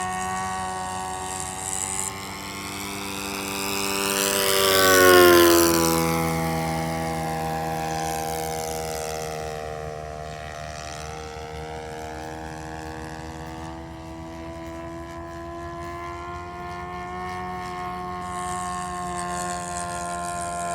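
Propeller of a radio-controlled Dewoitine D.520 scale model plane buzzing in flight. It flies close past about five seconds in, loudest there and dropping in pitch as it goes by, then keeps circling at a steadier, lower level.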